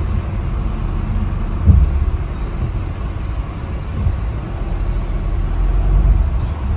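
Low, steady rumble of a car moving slowly at walking pace, heard from inside the cabin, with a single thump a little under two seconds in.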